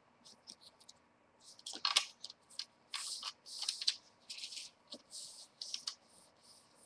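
Paper being handled and rubbed at a craft table: a string of short, scratchy rustles, with a sharper snap about two seconds in.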